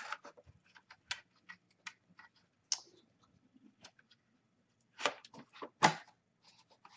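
Scattered light clicks and rattles of a mini PC's metal case and cables being handled as its board tray is slid in, with a few louder knocks around five to six seconds in.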